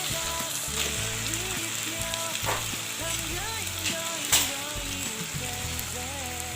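Sausage pieces frying in hot oil with ground garlic and shallot paste, a steady sizzle, with two sharp knocks, the louder one past the middle.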